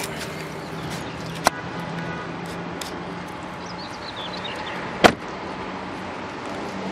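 The rear door of a Mitsubishi Lancer IX sedan is pushed shut about five seconds in with a single solid slam, the loudest sound here. A smaller sharp click comes earlier, about a second and a half in, over a steady low hum.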